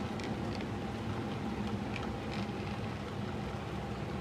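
Model railroad freight cars rolling along the track and across a truss bridge: a steady rumble and hum, with a few faint clicks from the wheels.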